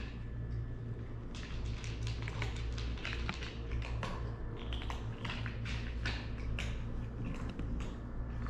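Irregular light scratching and tapping of a black-and-white kitten's paws and claws on a coarse woven doormat, close up, over a steady low hum.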